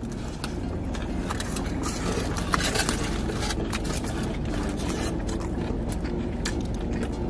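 Steady low hum in a parked car's cabin, with scattered chewing sounds and crinkles of foil sandwich wrappers over it.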